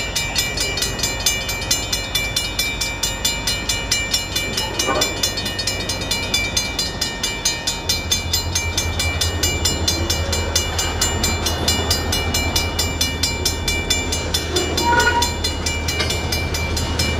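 Railroad grade-crossing warning bell ringing in rapid, even strokes while a train moves through the crossing. About halfway through, a low locomotive engine drone comes in under the bell.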